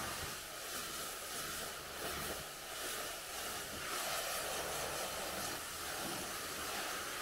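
Pressure washer jet spraying water against a car's side panels and wheel, a steady hiss as it rinses off the foam.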